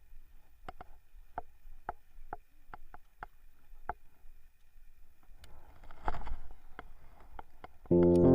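A run of light, sharp knocks, irregular at about two or three a second, then a short rustling burst about six seconds in; keyboard music starts near the end.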